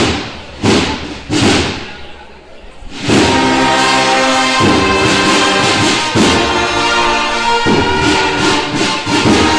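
Spanish cornet and drum band (banda de cornetas y tambores) playing a processional march. It opens with three heavy drum strikes, under a second apart, that ring in the hall. About three seconds in, the cornets come in with loud sustained chords over the drums, the chord changing every second and a half or so.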